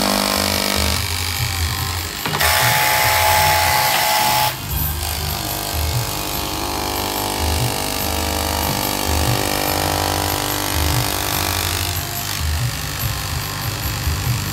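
Electric straight-knife cloth-cutting machine running, its vertical blade reciprocating through a stack of fabric layers. It gives a steady motor whine with a bright hiss, which changes character a few times as the cut goes on.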